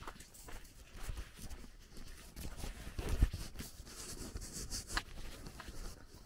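Footsteps of a person walking on a gravel dirt lane, a run of short crunching steps, with a louder low thump about three seconds in.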